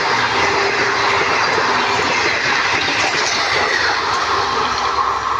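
Express passenger train of ICF coaches running through at high speed, its coaches rattling and clattering past as the last coaches go by, with a faint falling pitch about three to four seconds in.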